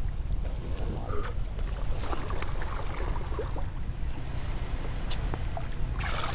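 Water lapping and trickling close to the microphone, with small splashes and ticks, over a steady low rumble of wind on the microphone. A louder rush of water comes near the end.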